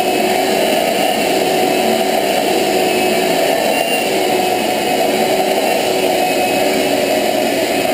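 Stainless-steel wet/dry shop vacuum running steadily at a constant pitch, its suction hose drawn over a cat's fur.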